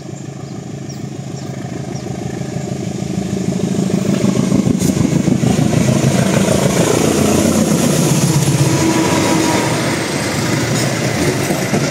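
A CC201 diesel-electric locomotive approaches under power and passes close by, its engine growing steadily louder and its note dropping in pitch as it goes past. The passenger coaches then roll by with a few sharp knocks from the wheels near the end.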